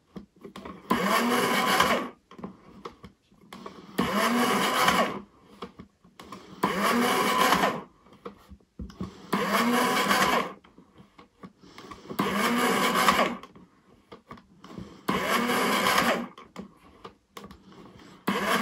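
Electric tobacco filling machine's motor running through repeated filling strokes, seven whirs of about a second each, each rising then falling in pitch, with light clicks between them. This is the repaired machine working on its test run.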